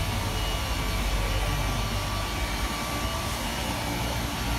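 A steady low mechanical rumble with an even hiss, unchanging throughout.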